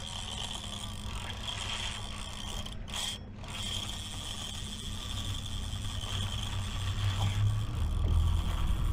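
Fishing reel working during a fight with a big fish, a steady mechanical whirr of gears and drag ratchet that breaks off briefly about three seconds in. A low rumble grows louder in the second half.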